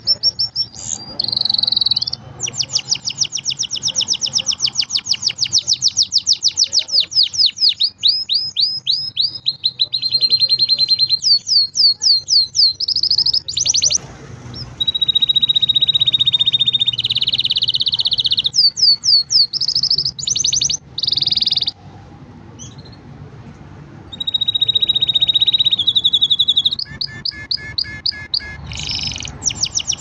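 Green domestic canary singing a long, loud song of fast repeated trills and steady high whistles, broken by a couple of short pauses.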